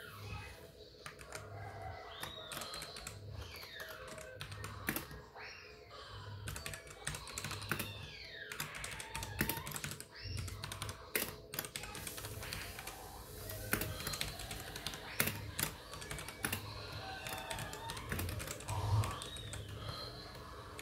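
Computer keyboard keys clicking in quick, irregular runs, over a low pulse repeating about once a second and some sweeping tones.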